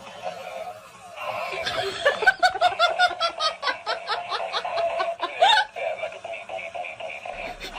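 A person laughing: a long run of rapid ha-ha pulses, about four a second, stopping about two thirds of the way through.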